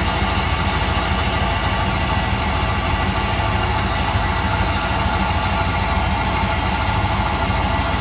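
Chevrolet Tahoe's V8 idling steadily, heard up close under the truck at the exhaust joint between the catalytic converter and the muffler. The joint has just been resealed with two gaskets and copper gasket sealant and shows no leak.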